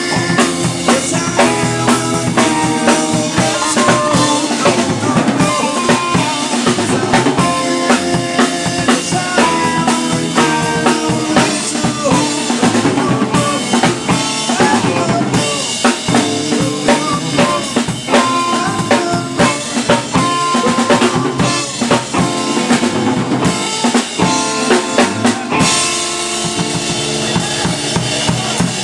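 Live rock band playing an instrumental passage, with a drum kit's snare, bass drum and cymbals to the fore and electric guitar under them.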